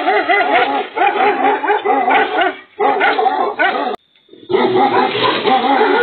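Several Bhotia dogs barking nonstop, the barks overlapping, in aggression at a leopard at their door, heard thinly through a security camera's microphone. The barking breaks off for about half a second around four seconds in, then carries on.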